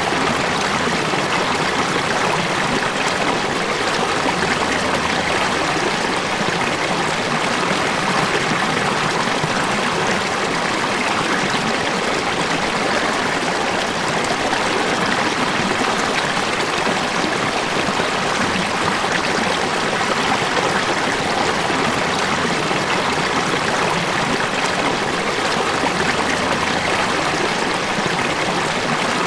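A river or stream flowing steadily over rocks, a constant rushing and babbling of running water.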